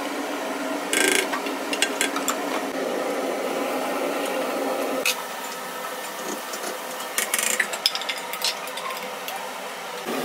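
Cooking at the stove: a wooden spatula stirring and scraping in a frying pan of curry, with sharp clicks and clatters of utensils and a lid against cookware a few times, over a steady background noise.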